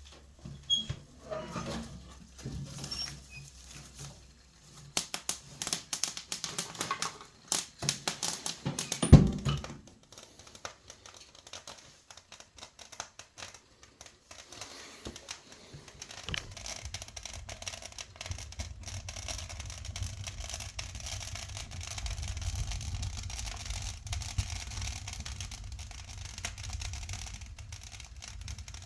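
Fir branches burning in a fireplace: rapid crackling and popping, with one loud knock about nine seconds in, then a steady low rush of flames with a hiss above it.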